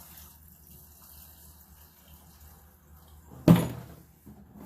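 Gasoline being poured from a can into a lawn mower's fuel tank, a faint steady trickle, then one loud clunk about three and a half seconds in.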